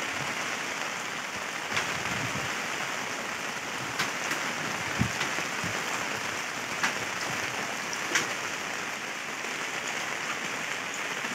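Steady rain hiss, with a few sharp ticks of single drops striking close by.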